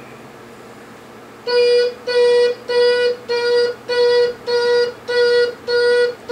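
Electronic sound module of a Bruder toy vehicle beeping like a reversing alarm: a steady string of identical high beeps, nearly two a second, starting about a second and a half in.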